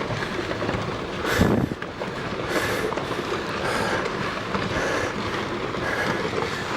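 Rockfall on a volcano's slope: rocks tumbling and clattering down in a continuous rumble, with one louder crash about a second and a half in.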